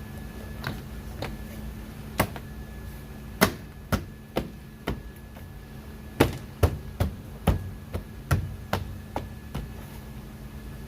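Nissan Sentra interior door panel being knocked into place on the front door, its plastic clips seating in the door's holes: about fifteen sharp knocks at an uneven pace, coming quicker in the second half.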